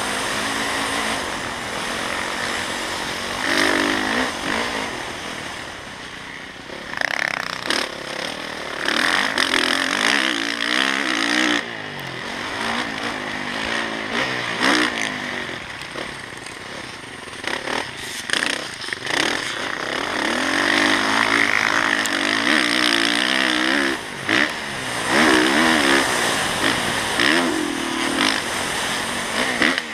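Motocross dirt bike engine from the bike's own on-board camera, revving up and falling back again and again as it rides the track, with a few sharp knocks and rattles.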